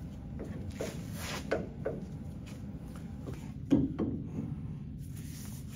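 Metal tools handled against a hydraulic car-lift cylinder clamped in a bench vise: a few light knocks, then a sharper clank a little before the pipe wrench is on the cylinder, over a steady low hum.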